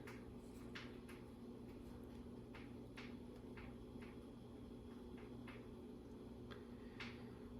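Faint, irregular clicks of small plastic LEGO pieces being handled and pressed into place, about ten over several seconds, over a low steady hum.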